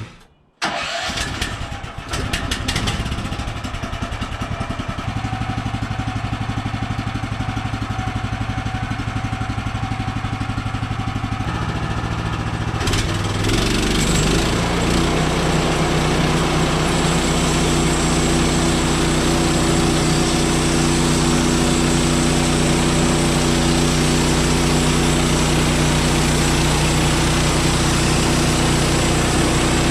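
Portable sawmill's small gasoline engine running steadily. About twelve seconds in its note shifts lower and becomes a little louder, then it runs on evenly.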